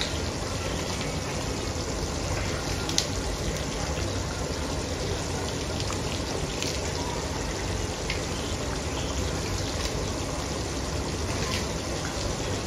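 A large aluminium pot of stew boiling: steady bubbling, with a few small pops here and there.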